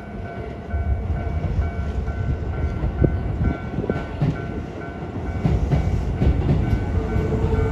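Level crossing warning bell ringing in a steady pulsed tone about twice a second over the low rumble of a Keikyu New 1000 series electric train. The rumble swells about a second in, and the wheels knock sharply on rail joints a couple of times.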